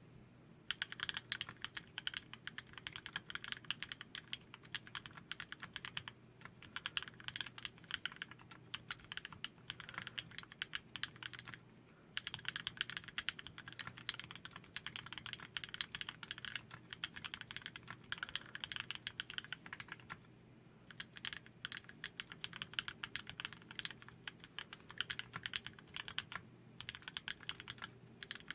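Steady typing on a Dolphin Linger custom mechanical keyboard with an aluminum plate and Cherry MX Black linear switches on 57 g springs: a dense stream of keystrokes that starts about a second in and breaks off for short pauses about four times.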